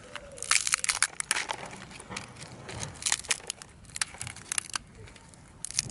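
Irregular crunching and crackling, a quick string of sharp crackles, as of dry soil and plant debris being broken up.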